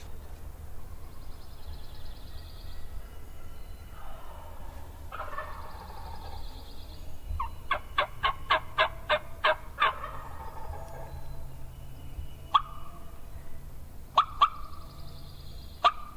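Wild turkeys calling: a gobbler's rattling gobble about four seconds in, then a loud run of about nine sharp yelps at roughly three a second, then a few single sharp cutts near the end.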